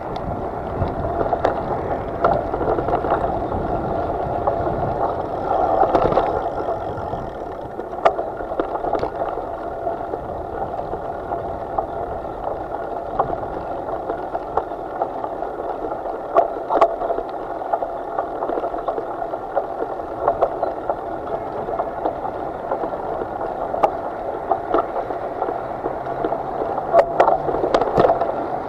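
Steady rush of moving water with occasional sharp knocks.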